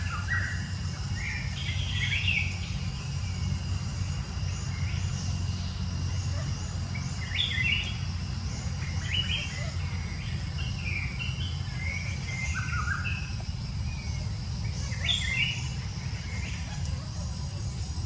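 Birds chirping in short, high calls scattered throughout, some sliding down in pitch, over a steady high insect drone and a steady low rumble.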